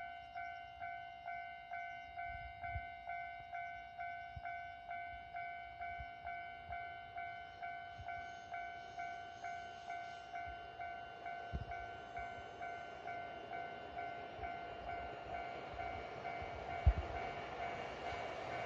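Railway level crossing alarm ringing: an electronic bell tone struck evenly about two and a half times a second. Near the end the rising rush of an approaching train starts to cover it, with a sharp knock shortly before.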